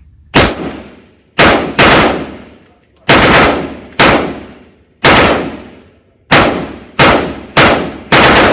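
Rifle fired in single shots, about ten in a row at an uneven pace, each shot ringing out and dying away before the next.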